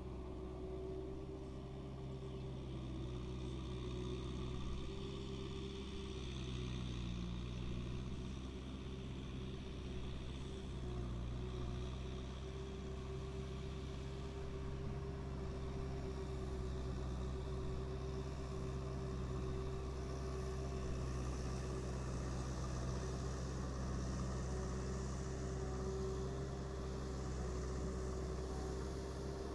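Kubota M6040 SU tractor's diesel engine running steadily under load while it pulls a rotary tiller through wet soil, with a steady higher hum above the engine note. The engine note wavers briefly between about six and eleven seconds in.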